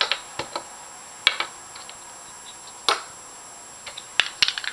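Plastic pieces of a DIY puzzle cube clicking and snapping as they are fitted together by hand: scattered sharp clicks, with a quicker run of clicks near the end.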